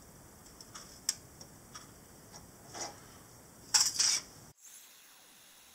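Light metallic clicks and taps of a thin steel shim being slid under a stationary milling-machine end mill to set the cutter height. About four seconds in come two louder metal-on-metal scrapes as the shim is drawn out, and then the sound cuts off suddenly to a faint hiss.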